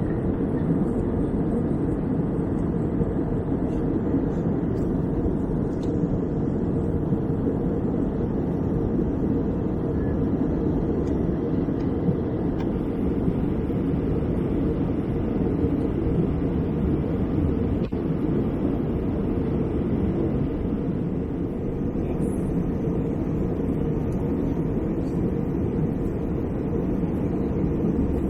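Steady cabin noise of an Airbus A321-200 airliner at cruise altitude: an even, low rush of airflow and engine noise heard from inside the cabin.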